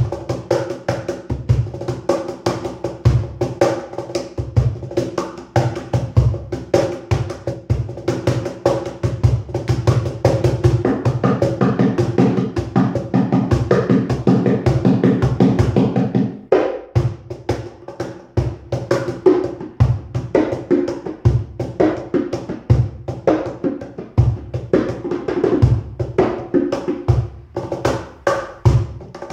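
Cajón played with the hands in a steady rhythmic groove of low thumps and sharper slaps. From about 11 to 16 seconds in the strokes come in a fast dense run, then break off briefly before the groove resumes.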